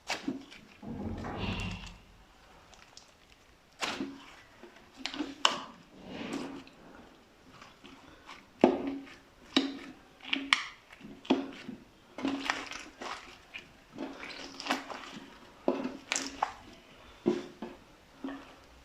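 Slime being pressed and mixed by hand: irregular wet, sticky squelches and pops, several every few seconds, with a longer, lower squish about a second in.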